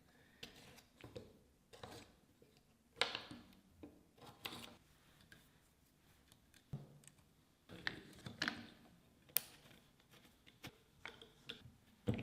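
Copper tape being handled and applied by hand: scattered short rustles, scrapes and light clicks.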